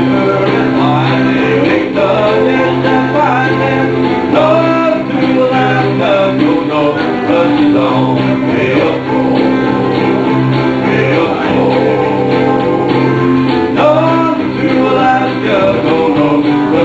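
Live country band playing: guitar over a steady bass line, with a man singing.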